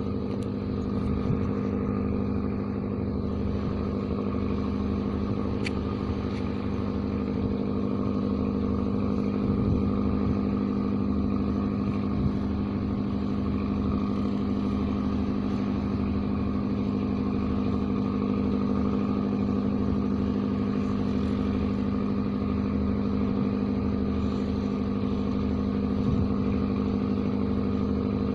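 An engine running at a steady, unchanging speed, a constant hum with a few faint clicks over it.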